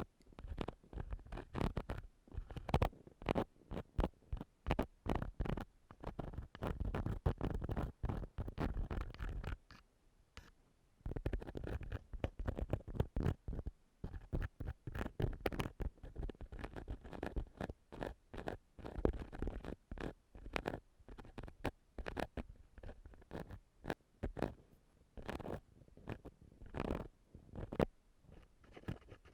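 Ear-cleaning tool scraped and rubbed against an ear-shaped ASMR microphone: rapid, irregular scratching strokes with a short pause about ten seconds in.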